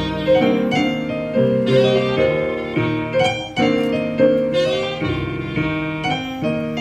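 Keyboard playing chords under a tenor saxophone melody of held notes that change about every half second.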